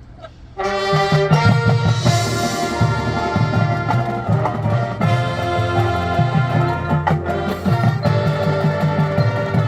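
Marching band of brass, wind and percussion coming in loud with a full-ensemble entrance about half a second in, then playing on with sustained brass chords over a pulsing low beat.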